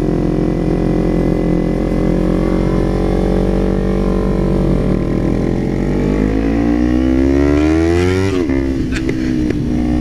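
Small sport motorcycle with an aftermarket full exhaust running under wind noise. It pulls through a gear with rising revs for about three seconds, then the revs drop sharply near the end at a gear change, and it settles back to a steady note.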